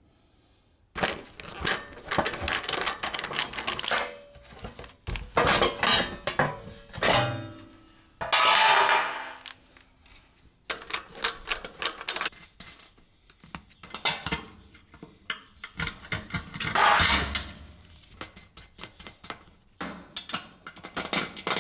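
Repeated metal clicks, taps and rattles of tools and loose hardware against the sheet-steel back panel of an electric range as its power cord is unbolted from the terminal block, with two longer, louder stretches of noise about eight and seventeen seconds in.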